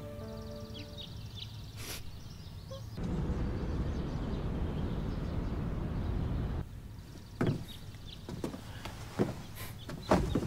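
Light chirps over the tail of fading music, then about three and a half seconds of steady town ambience with a busy hubbub, cutting off sharply. A few short knocks and thuds of objects being handled follow near the end.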